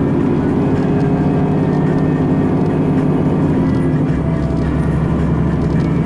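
Engine drone and road noise heard from inside a moving vehicle's cabin, steady and loud, with the engine note shifting about four seconds in.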